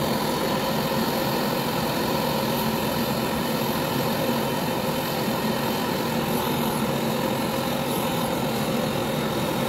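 Handheld gas brazing torch burning steadily, a continuous rushing hiss of flame with no breaks, as it heats a copper suction pipe joint on an AC compressor for brazing.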